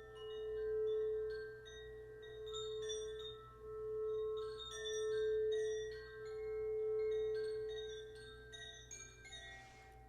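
Quartz crystal singing bowl music: one strong held tone that swells and fades every second or two, over several quieter held tones and scattered high tinkling notes. The main tone fades out near the end.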